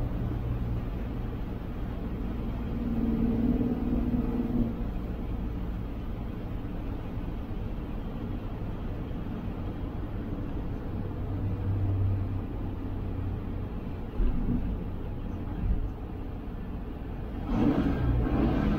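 Dodge A100's slant-six engine running as the truck drives, heard inside the cab, its note swelling and easing a couple of times. Two short knocks come late on, and the sound grows louder and rougher near the end.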